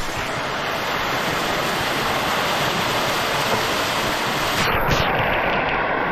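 Steady rush of water in a mountain stream, a dense even hiss; the sound turns duller about two-thirds of the way through.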